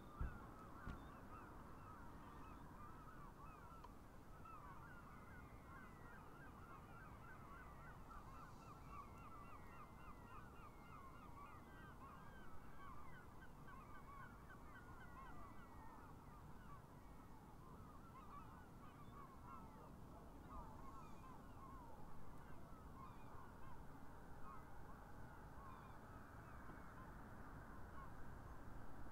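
A large flock of geese calling faintly, many short honks overlapping in a continuous chatter, over a low steady rumble. A single thump sounds right at the start.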